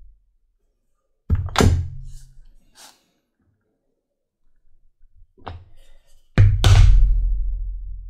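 A mallet striking a metal leather-stamping tool held on a leather belt strap over a granite slab. Two strikes come together about a second in, a few light taps follow, and two more loud strikes land near the end, each with a deep thud that dies away over about a second.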